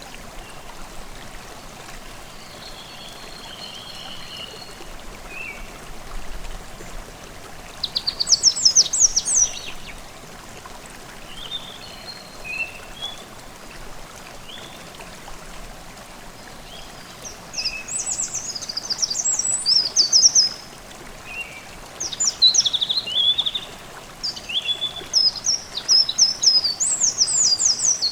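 Forest stream babbling steadily, with songbirds singing over it in bursts of rapid high notes and trills, about eight seconds in and again through most of the second half.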